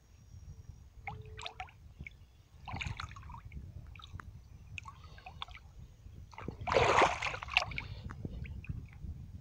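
A hand sloshing and splashing in shallow river water, making small scattered splashes, with a louder splash about seven seconds in.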